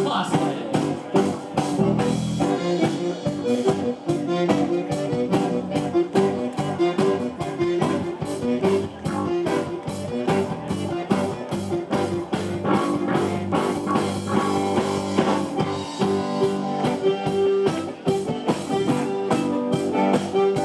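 Blues band playing an instrumental passage: guitar over a drum kit keeping a steady beat.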